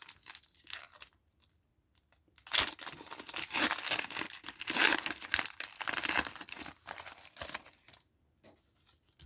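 Foil booster pack wrapper crinkling and being torn open. There are light rustles at first, then a dense run of crackling from about two and a half seconds in until about eight seconds.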